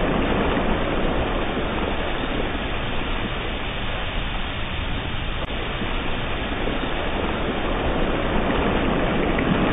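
Ocean surf washing up over wet sand, a steady rush of water that ebbs a little midway and swells again.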